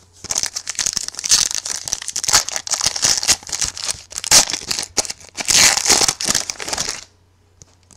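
Wrapper of a trading-card pack being torn open and crinkled in the hands, a dense crackling that stops about seven seconds in.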